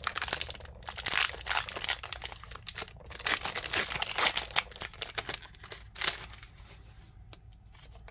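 A Pokémon TCG booster pack's foil wrapper being torn open and crinkled in the hands, then going quiet near the end.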